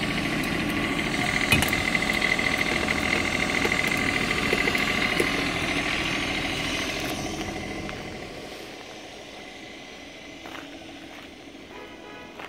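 Onan CMQD7500 7,500-watt diesel generator running steadily, with a steady high whine over the engine sound. It grows fainter from about seven seconds in.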